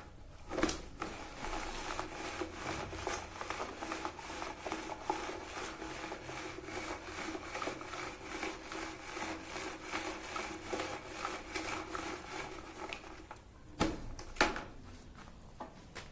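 Rhythmic scraping and rubbing, several strokes a second with a steady hum under it, which fits stirring the acid solution in a plastic bucket. It stops about 13 seconds in and is followed by two sharp knocks.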